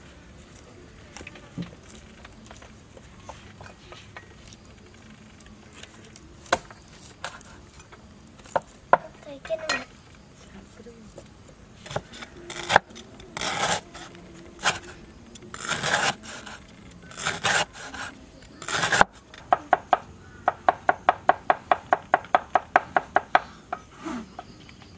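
Cleaver slicing lemongrass stalks on a wooden chopping board: a few long scraping cuts, then a quick even run of about five chops a second for some four seconds near the end.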